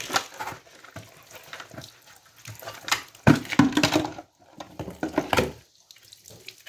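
Water splashing and containers knocking and clattering at a tiled sink, in irregular bursts.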